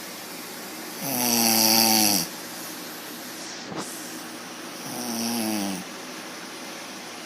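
An elderly woman snoring: two drawn-out snores about four seconds apart, the first longer and louder, each dropping in pitch at its end. They sit over the steady hiss of an electric fan.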